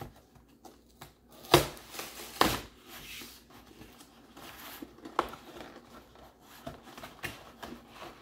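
A cardboard box and plastic packaging being handled as the contents are slid out: soft rustling and scraping with a few sharp knocks, the loudest about a second and a half and two and a half seconds in.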